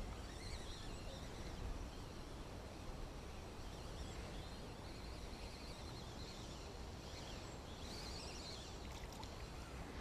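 Quiet outdoor ambience: a steady low wind rumble on the microphone, with a few high warbling bird chirps, one about three seconds in and another near the end.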